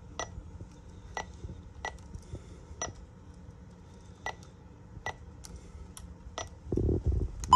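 About ten short, sharp clicks at irregular spacing, then a brief low rumble and a short loud beep at the very end.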